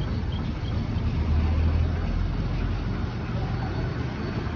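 Steady low rumble of road traffic, swelling in the middle and easing off again.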